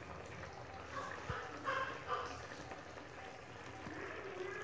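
Matar paneer curry bubbling faintly as it simmers in a metal kadhai over a gas flame.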